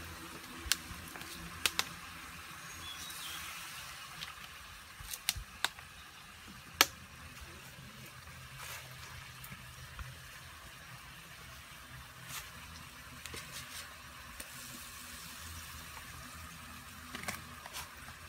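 Sauce simmering in a wok on a portable gas stove, a steady faint bubbling hiss, with scattered sharp taps of a knife on a wooden cutting board.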